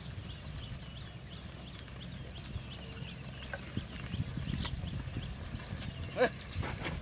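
Cattle pulling a plow through a field: faint, irregular knocks of hooves and gear over a low rumble, with small birds chirping high above. A short, sharper pitched sound stands out about six seconds in.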